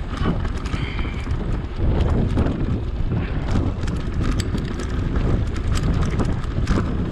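Wind buffeting the action camera's microphone while riding an electric mountain bike, with scattered clicks and knocks from the bike rattling over the riding surface.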